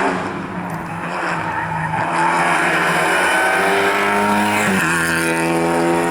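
Rally car engine at high revs under hard acceleration, its note climbing and then dropping sharply at an upshift about five seconds in.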